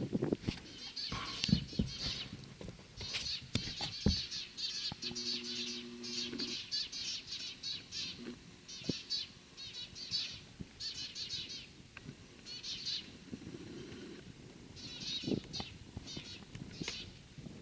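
Small birds chirping in repeated quick, high-pitched chattering bursts, with a few sharp knocks among them.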